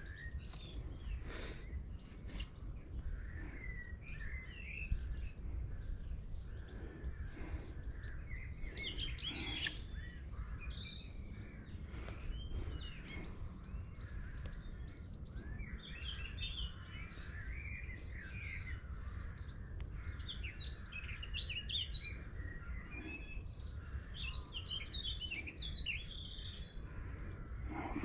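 Several birds singing and chirping, many short overlapping calls and warbles, over a steady low rumble.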